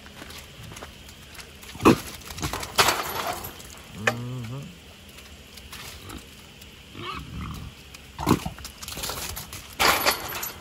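Two trapped wild boars charging and hitting the wire panels of a corral hog trap, giving several loud knocks, with a short low grunt about four seconds in.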